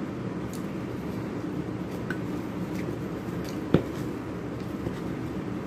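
A fork knocking and scraping against an aluminium foil food tray while eating, with faint scattered clicks and one sharp knock just under four seconds in, over a steady low hum in the room.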